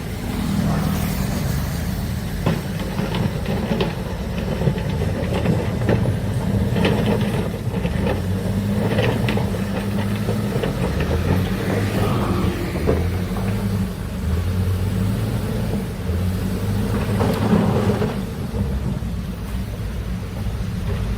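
Heavy excavator's diesel engine running under load, its pitch stepping up and down as it works, with scattered knocks and clanks.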